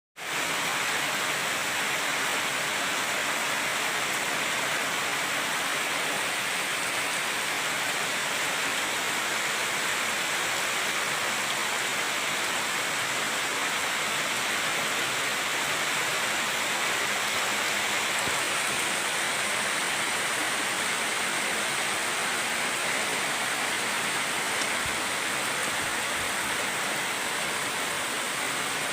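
Heavy rain pouring down, a dense, even hiss that holds steady throughout.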